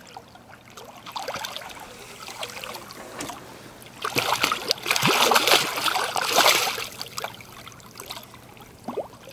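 A hooked blue catfish thrashing and splashing at the water's surface on the line, with a run of heavier splashes from about four to seven seconds in.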